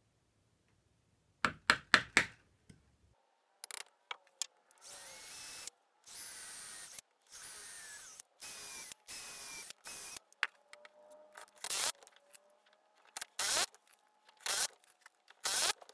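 Three sharp knocks as an awl is tapped into the end grain of a mahogany blank, then a Porter-Cable cordless drill runs in about five short bursts with a rising whine, boring pilot holes. Shorter drill bursts and clicks follow near the end as screws are driven to fasten a lathe faceplate.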